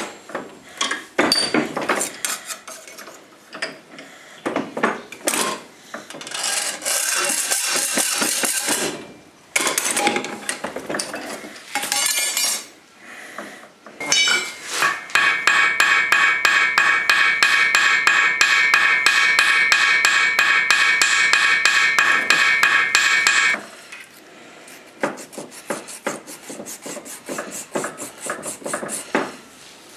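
Hand metalwork on a small piece of 1 mm copper sheet in a steel bench vise: sharp hammer taps and knocks, then a long, steady, pitched scraping for about nine seconds in the middle. Rapid hand-file strokes follow near the end.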